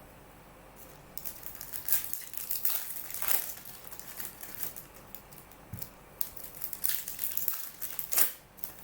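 Plastic wrapping on a trading-card box or pack crinkling and tearing as it is handled and opened: an irregular run of crackles and sharp snaps from about a second in, the loudest snap near the end.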